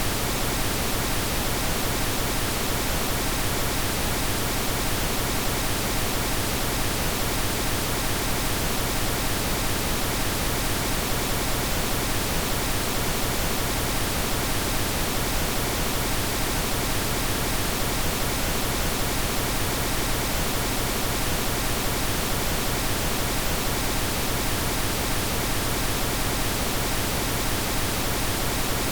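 Synthetic pink noise: a steady, unchanging hiss spread evenly across all pitches.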